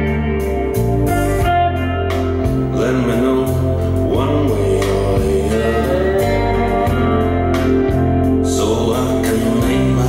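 A song with a singing voice over sustained instrument notes and heavy bass, played back on a Harman Kardon Aura Studio speaker.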